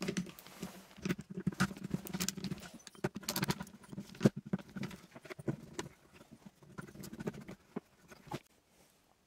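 Screwdriver backing wood screws out of a slotted metal grille lid on a wooden box: irregular clicks and knocks of the tip and screws against the metal. The clicks stop about eight seconds in.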